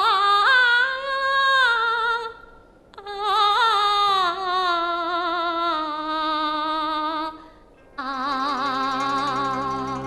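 Woman singing a Teochew opera aria in two long phrases, her voice held and wavering on each note. Near the end the singing stops and the instrumental accompaniment plays on.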